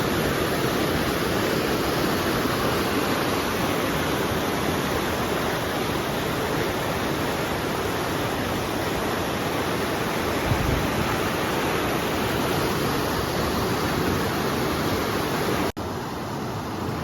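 Waterfall rushing, a steady, even noise of falling water. There is a brief low bump about ten seconds in, and a sudden break near the end, after which the rushing goes on slightly quieter.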